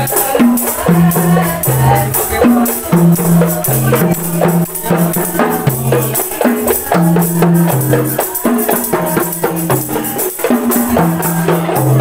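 Qasidah music: rebana frame drums struck in a quick, steady rhythm over a repeating low bass line.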